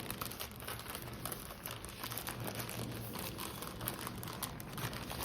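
A small packet being handled and opened by hand, its wrapping crinkling and rustling in quick irregular crackles.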